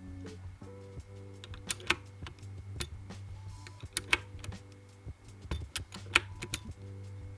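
Irregular, scattered keystrokes on a Nuphy Air 75 V2 low-profile mechanical keyboard, each a sharp click, over background music with a steady low bass.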